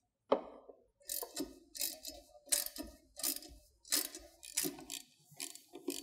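Hand ratchet wrench clicking in repeated short strokes as bolts are tightened, a few clicks a second, with a sharp metal knock just after the start.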